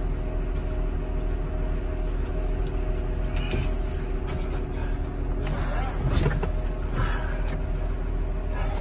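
A heavy vehicle's engine idling steadily, with a few short knocks and rattles starting about midway.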